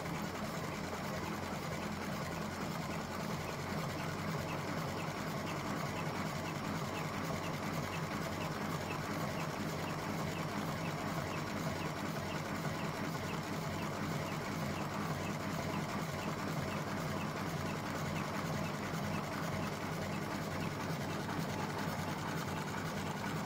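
Electric cam-driven automatic cigarette filling machine running steadily, its single motor humming low with a regular light ticking from the cam-driven mechanism as it fills cigarettes.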